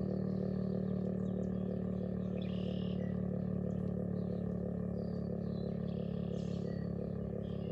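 Federal Signal STH-10 outdoor warning siren sounding a low, steady tone with a quick, regular pulsing in loudness. Birds chirp faintly over it.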